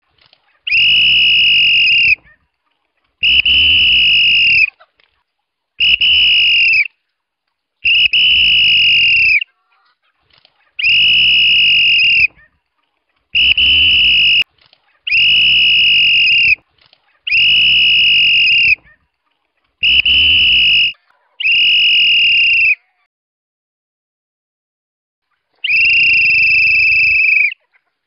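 A farmer's whistle blown as a call to feed, about eleven long blasts of one steady high pitch with short silences between them and a longer pause before the last one. It is the signal that brings his flock of chickens down the hill to their food.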